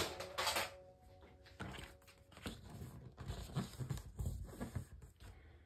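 Paper and card being handled and laid on a cutting mat: two sharp rustles right at the start, then soft rustling and light taps.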